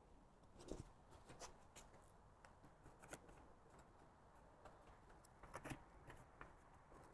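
Faint, scattered light clicks and taps of hands handling tools or workpieces during carpentry work, with a few slightly stronger knocks about three-quarters of a second in and around five and a half seconds in.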